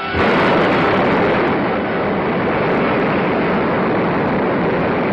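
Missile launch: a loud, steady rushing roar from the missile's engine exhaust, cutting in suddenly.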